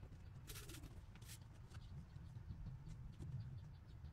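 Quiet handling sounds of rubber bands being picked up and stretched around a phone: a few short clicks and scratches over a low steady hum.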